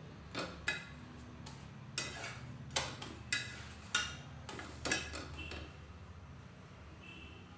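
A flat metal spatula knocking and scraping against a tawa (flat griddle) while pressing and turning a roti: about seven sharp clinks with a brief metallic ring, stopping after about five seconds. A low steady hum runs underneath.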